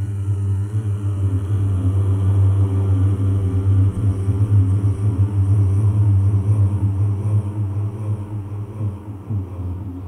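A loud, steady low rumble with a deep hum, swelling a little midway and easing slightly near the end.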